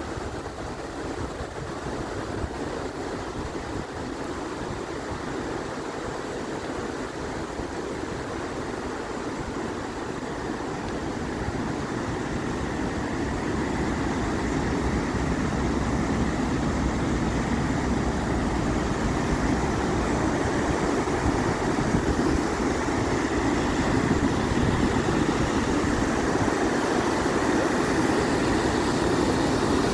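Una River rapids rushing, a steady whitewater noise that grows louder about halfway through as the close rapids come nearer.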